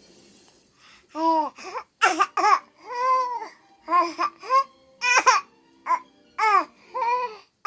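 A pet making a series of about ten short, pitched calls, each rising then falling, to get its owner's attention. The calls start about a second in and come in quick succession.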